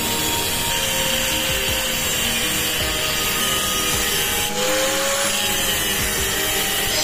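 Angle grinder with a thin cut-off disc cutting into steel plate, a steady running whine and hiss of the disc under load, its pitch wavering a little about halfway through.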